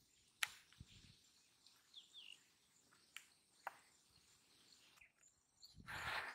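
Near silence: faint outdoor ambience with a couple of short, faint bird chirps about two seconds in and a few soft clicks, then a brief burst of noise near the end.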